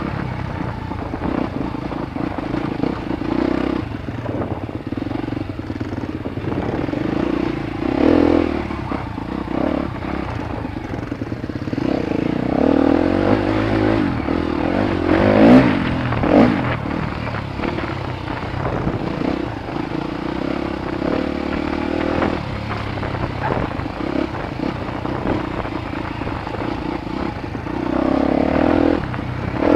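Dirt bike engine running continuously, rising and falling with the throttle, with a brief rev climbing in pitch about halfway through. Clatter and scraping from the bike working over the rough trail.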